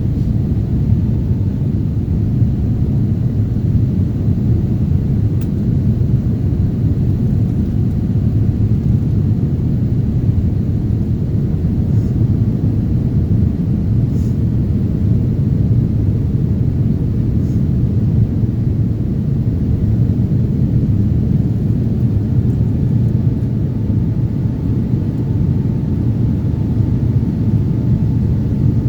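Steady low rumble of an airliner's jet engines and airflow heard from inside the passenger cabin during takeoff.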